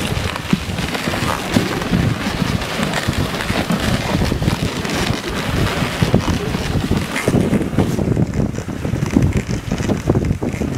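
Dog sled pulled by Alaskan huskies running over packed snow: runners scraping and hissing, with wind buffeting the microphone. The hiss thins out about eight seconds in.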